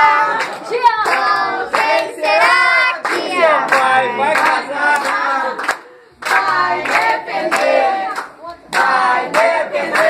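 A small group singing a birthday song together while clapping their hands in time, with short breaks about six seconds in and again near the end.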